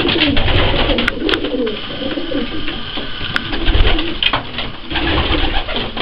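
Racing pigeons cooing in a small loft, with a few sharp clicks and some low bumps, the loudest about four seconds in.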